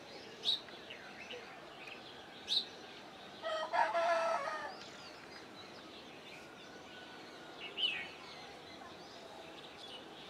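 Faint bird calls: a few short, high chirps, and about three and a half seconds in one longer, louder call lasting a little over a second.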